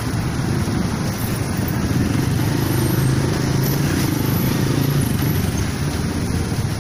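Motorcycle being ridden slowly through city traffic, heard from the rider's seat: a steady engine rumble mixed with road noise.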